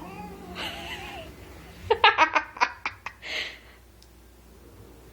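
A cat's wavering growling yowl trails off in the first second. About two seconds in comes a loud burst of a person's laughter, a run of about six short 'ha's that fade, followed by a short breathy burst.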